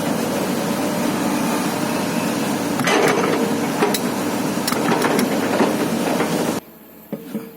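Excavator engine running steadily with several sharp metal clanks over it. The engine sound cuts off abruptly near the end, leaving a few lighter knocks.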